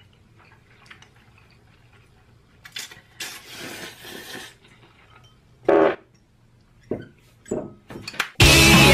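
Spicy instant noodles being slurped and eaten, a wet, hissing slurp lasting about a second and a half, then a few short loud mouth sounds. Loud music cuts in just before the end.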